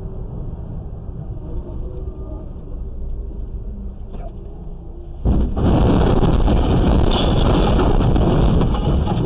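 Steady low engine and road rumble inside a truck cab. About five seconds in, a sudden loud rushing noise sets in, holds for about four seconds, then cuts off.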